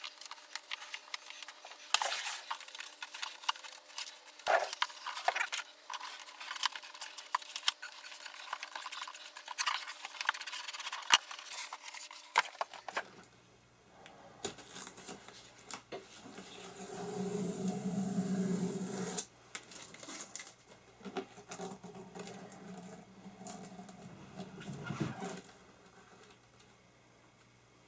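Hands working leatherette onto a wooden tool chest: scattered rustles, scrapes and light taps of the covering being wrapped and pressed down, with a longer stretch of rubbing a little past halfway.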